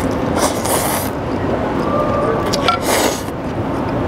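A man slurping ramen noodles off chopsticks: two noisy sucking slurps, about a second in and again just before three seconds in, over steady background noise.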